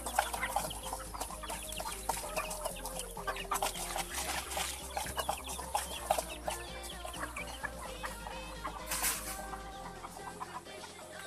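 A flock of backyard chickens clucking and chirping, with many short, quick calls overlapping. A brief rustle comes about nine seconds in.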